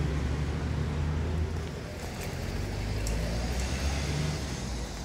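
A motor vehicle engine running with a steady low rumble, over a noisy outdoor background. A few faint, thin ticks come from about two seconds in.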